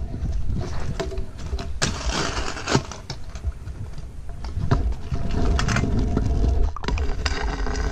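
Kick scooter wheels rolling over a concrete footpath, knocking sharply now and then at the joints between slabs, with a steady wind rumble on a helmet-mounted microphone.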